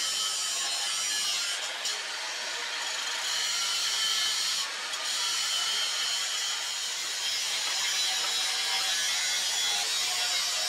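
Angle grinder's abrasive disc grinding a steel blade, a steady high hiss with brief breaks about two seconds in and again near five seconds.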